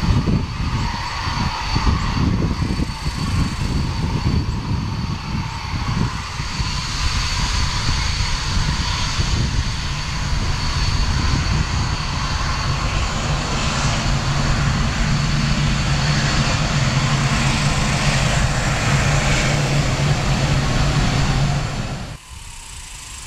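Dassault Mirage 2000's single SNECMA M53 turbofan running as the jet taxis: a steady high whine over a loud rumble. The sound drops away abruptly about a second before the end.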